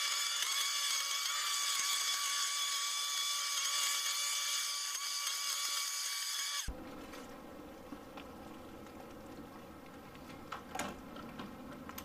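Ryobi 40-volt battery leaf vacuum-mulcher running with a steady high-pitched whine from its motor and impeller. The whine cuts off suddenly about two-thirds of the way through, leaving a quieter low rumble with a couple of clicks.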